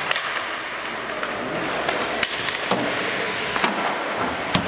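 Ice hockey play on the rink: skates scraping on the ice, with about five sharp clacks of sticks and puck spread through the moment.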